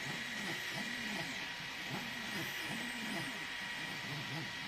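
EasyThreed K10 mini 3D printer running a print: its stepper motors sing in low, rising-and-falling pitch sweeps, about two a second, over a steady fan hiss with a high steady tone.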